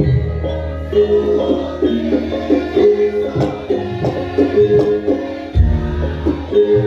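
Javanese gamelan music accompanying Lengger dance: struck metallophone notes in a quick repeating pattern, with a deep low tone that swells at the start and again near the end.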